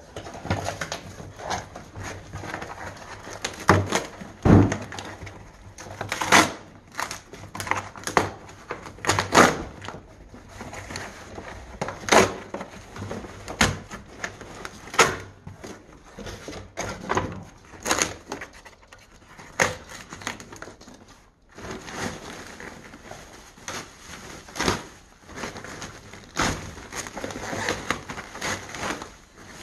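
A new microwave's cardboard box and packing being opened and handled: irregular knocks, scrapes and crackling, a few sharper thumps among them.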